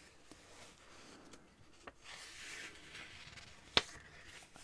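Paper pages of a small old paperback guidebook turned by hand: a soft papery rustle as the page slides over, then one sharp crisp flick of the page near the end.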